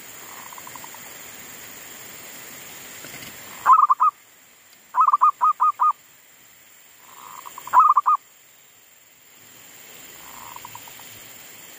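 Caged decoy zebra dove (perkutut) cooing: a staccato song of short, clear notes in three loud groups in the middle (a few notes, then five quick ones, then a few more), with softer rolling coos near the start and end. A steady wind hiss lies underneath.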